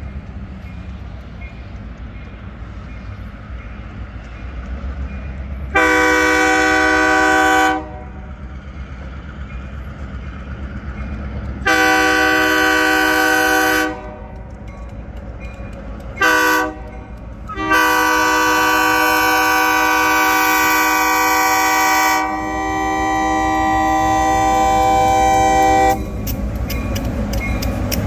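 GLC Railroad diesel locomotive's multi-chime air horn sounding the grade-crossing signal: two long blasts, a short one, then a final long blast held for about eight seconds. Underneath runs the low rumble of the approaching locomotive, which grows louder near the end as it reaches the crossing.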